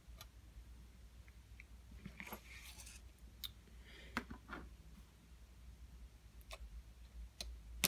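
Faint, scattered small clicks and soft rustles of an iPhone 6s Plus display assembly being handled and set down on a desk mat, with one sharper click near the end.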